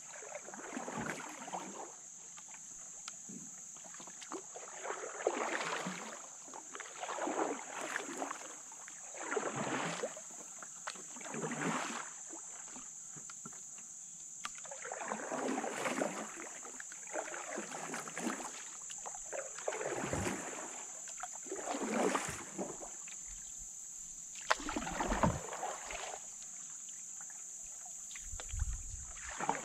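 Canoe paddle strokes through calm water, a swish about every two seconds, pausing twice, over a steady high-pitched drone.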